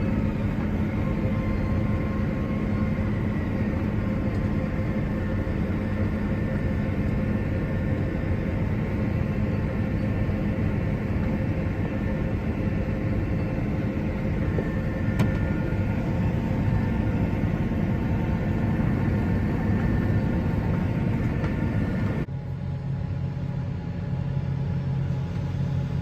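Large diesel harvest machinery running steadily under working load, a dense drone with a faint whine above it. About 22 seconds in it cuts abruptly to a slightly quieter engine drone with a different pitch.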